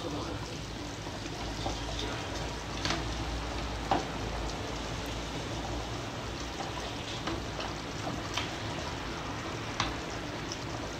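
Pot of cow-leg curry (nihari) simmering with a steady bubbling hiss as its broth cooks down, while a wooden spoon stirs it. The spoon knocks against the metal pot a few times, loudest about four seconds in.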